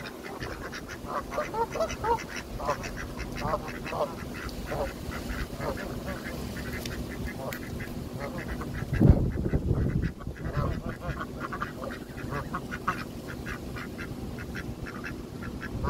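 Ducks quacking repeatedly, short calls coming in quick runs. There is a brief low rumble about nine seconds in.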